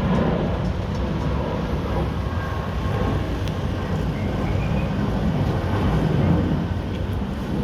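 Freight train passing a level crossing: the steel wheels make a steady, loud noise on the rails, with a few faint ticks.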